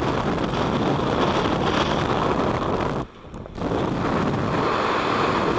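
Wind rushing hard over a skydiver's helmet-camera microphone as the jumper falls after cutting away the main parachute. Around three seconds in, the rush drops out sharply for about half a second, then returns.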